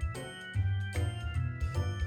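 Background music: keyboard-like notes changing about twice a second over a steady bass line.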